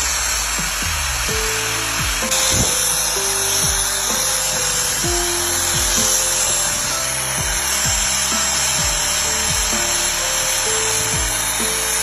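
Power grinder's abrasive disc grinding the steel handle of a ratchet wrench, a steady high-pitched grinding hiss, under a background music track.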